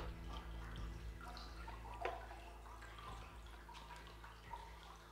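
Quiet background music fading out: sustained low tones with sparse, drip-like plinking notes and one sharper click about two seconds in.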